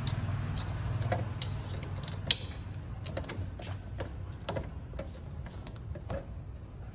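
Irregular light clicks and taps of a baby monkey's hands and feet on a metal mesh rack and a plastic bottle as it climbs and handles them, with one sharp click about two seconds in.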